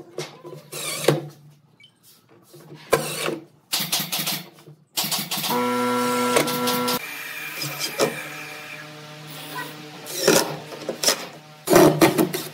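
Workshop machine noise: a power tool running in short bursts, with a steady motor whine lasting about a second and a half near the middle.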